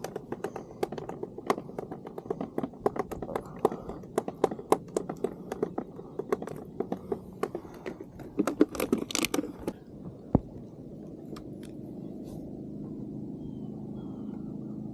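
Freshly caught mackerel flapping and slapping against a hard surface: rapid, irregular taps for about ten seconds, ending with one sharper knock. A steady low hum then takes over.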